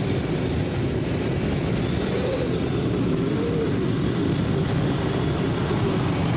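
Modified pulling tractor running hard under load as it drags the weighted sled down the track: a steady engine noise with a drone that wavers slightly up and down in pitch.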